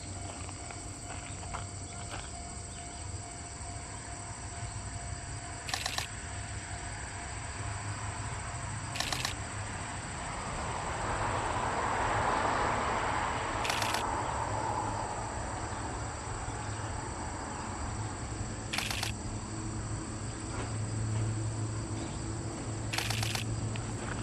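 Insects such as crickets chirring steadily, with a camera shutter clicking five times a few seconds apart. A broad rushing noise swells and fades in the middle.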